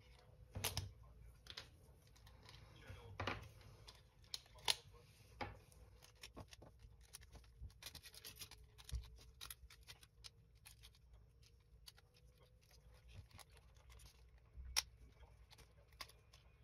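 Plastic parts of a 1/24 scale Tamiya GMA T.50 model kit being handled with gloved hands: light, scattered clicks, taps and rustles, with a few sharper clicks about a second in, near five seconds and near fifteen seconds.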